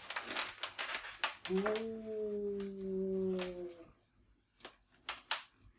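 A man's voice holding one long hummed note for about two seconds, slightly falling in pitch, over the light crackling and squeaking of latex balloons rubbing together as a twisted-balloon helicopter hat is handled on the head. A few soft clicks near the end.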